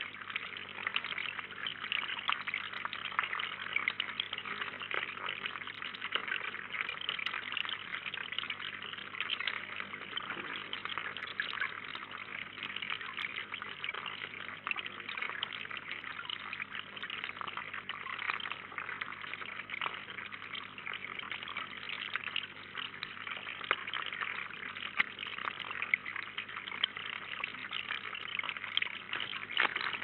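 Steady trickle of water splashing into a small rocky garden pond.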